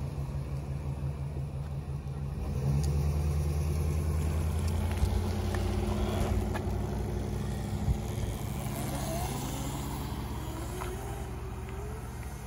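Motorhome engine running as it drives past, loudest for several seconds in the middle, with two short knocks. Near the end a rising whine as the brushless-motor electric mini bike pulls away.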